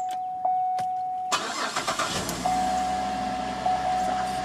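2008 Cadillac SRX engine cranking and catching about a second in, then settling into a steady idle. A steady electronic warning tone from the car sounds before the start and again over the idle.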